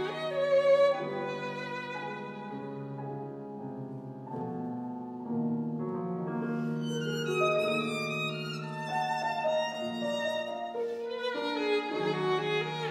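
Violin with piano accompaniment playing classical chamber music: sustained, singing violin notes over held piano chords, the violin's tone growing brighter in the middle.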